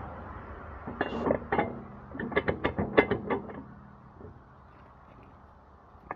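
Ratchet clicking: a quick run of about a dozen metallic clicks over two and a half seconds, then it stops.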